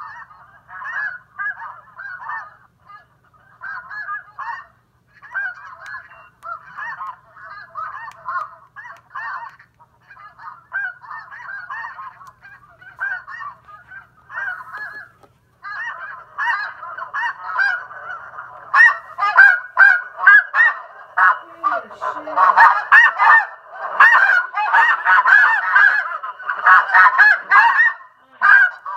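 Recorded snow goose flock calls played through a homemade electronic caller built around a Lepai amplifier: many overlapping goose honks. They come in short bursts with brief gaps through the first half, then grow denser and louder, without a break, for the second half.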